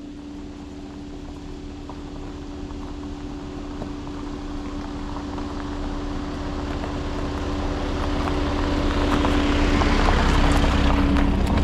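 A steady motor hum with a rushing noise, growing steadily louder.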